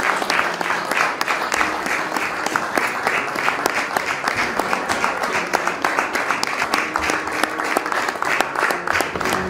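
A small group of people clapping their hands together in a steady rhythm, about three claps a second.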